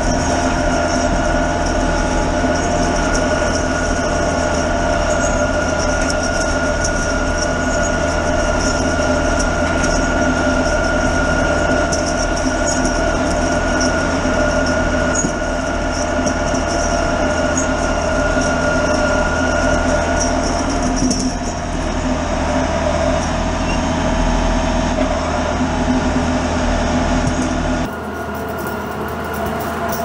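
Tractor driving while towing a loaded silage dump trailer, heard from on the tractor: steady engine and drivetrain noise with a high, even whine that fades out about two-thirds of the way through. Near the end the sound changes abruptly to a quieter engine.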